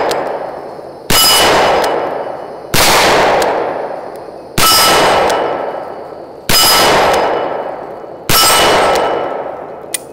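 Smith & Wesson Model 610 10mm revolver firing five shots about every two seconds, each followed by a long ringing, fading tail; the tail of the shot before also fades out at the start. The steady run of shots shows the cylinder turning smoothly without locking up.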